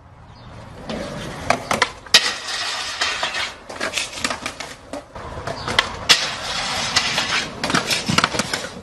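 Skateboard wheels rolling over rough pavement, a steady rough hiss broken by many sharp clacks and knocks.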